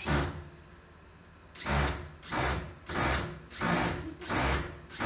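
Rhythmic back-and-forth scraping strokes on wood, roughly three every two seconds, starting about a second and a half in after a single short scrape at the start.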